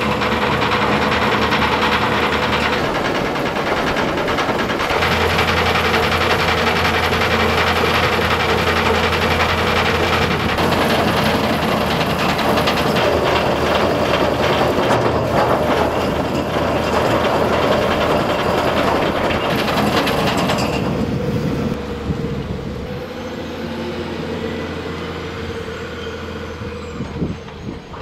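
Screening bucket on a wheel loader processing wood chips and stumps: its rotating screen drums churn the wood in a dense, continuous rattle over the loader's running diesel engine. It eases off a little over the last several seconds.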